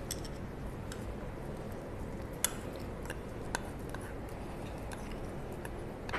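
Metal spoon clicking and scraping against a small bowl while scooping thick kerisik paste out of it: a few scattered light clicks, the sharpest a little over two seconds in.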